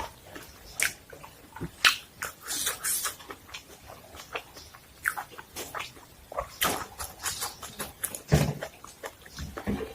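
Close-miked eating sounds: a person chewing, with irregular wet smacks and clicks of the mouth.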